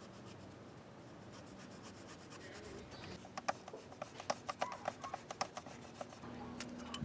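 Hand-tool work on engine parts: faint rubbing and scraping, then about three seconds in a run of a dozen or so irregular sharp clicks lasting a few seconds.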